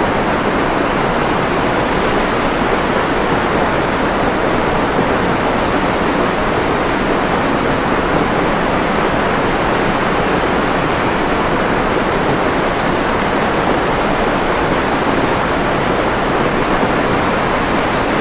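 Steady, unchanging synthetic noise for sleep and relaxation, weighted toward the lower-middle range like pink noise, with no rhythm or events.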